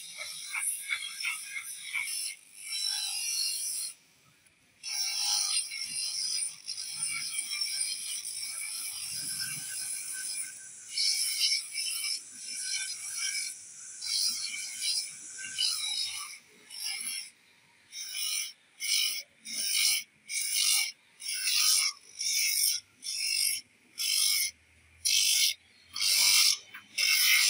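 A wooden tool handle being shaped against an abrasive disc spinning on a small electric motor, making a harsh hissing rasp. In the first half the wood is held to the disc in long grinds; in the second half it is pressed in quick short strokes, a little over one a second.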